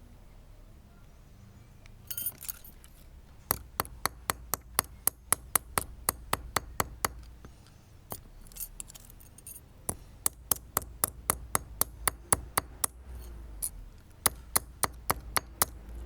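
A hammer striking a thin metal pipe strap to flatten it, with sharp metallic clinks about three to four times a second in three runs separated by short pauses.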